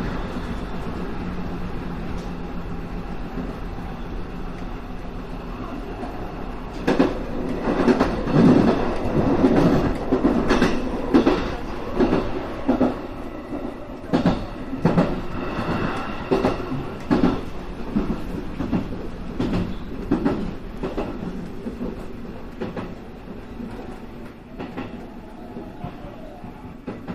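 JR West 221 series electric train running, heard from inside the cab: a steady hum for the first few seconds, then a run of sharp clacks as the wheels cross rail joints and points. It grows quieter near the end as the train slows into the station.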